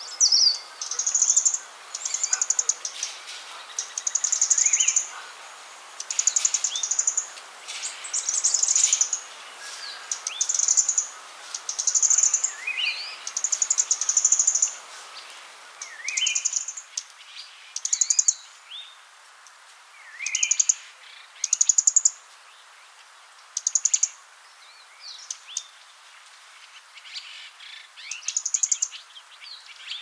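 Fire-breasted flowerpecker singing: short, very high-pitched trills repeated about every second or two, with thin falling notes between them. The trills come less often in the second half.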